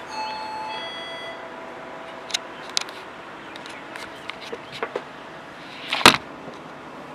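A brief ringing tone of several steady pitches that fades within the first second or so, then scattered light clicks and knocks of handling and work, with one louder sharp knock about six seconds in.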